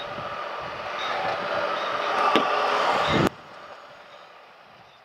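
Wind and road noise from a motorcycle riding at speed, with gusts buffeting the microphone, growing louder. About three seconds in it cuts off abruptly to a much fainter hiss.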